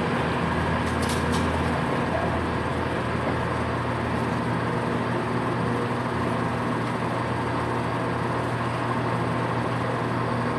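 Diesel multiple unit engines running steadily, a continuous low hum with a few fixed tones; the deepest part of the hum drops away about two seconds in.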